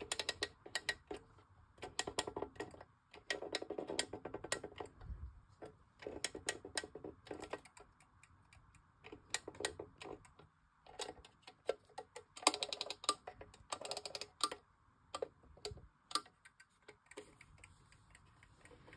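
Clockwork of a 1901 Waterbury wind-up alarm clock clicking as a key on its back is turned by hand: bursts of rapid clicks with short pauses between them.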